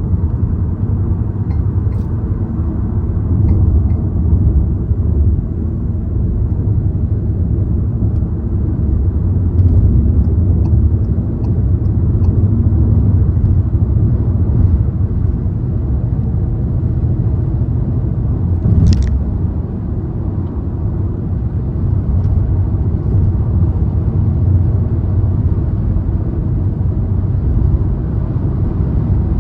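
Car driving at road speed: steady low rumble of tyre and engine noise, with a few faint ticks and one brief high-pitched chirp about two-thirds of the way through.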